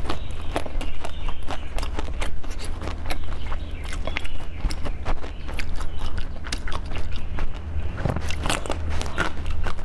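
Close-miked eating sounds: a pink jelly treat lifted out of its plastic cup with crisp clicks, then bitten and eaten with wet mouth clicks, thickest near the end.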